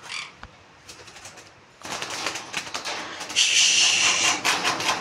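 A parrot gives one loud screech lasting just over a second, about three and a half seconds in, after a run of short clicks and knocks.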